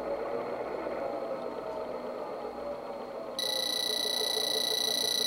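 WeighStation track scale's electronic alert bell sounding as weighing finishes: a steady high beep of about two seconds that starts about three and a half seconds in, over a faint steady background.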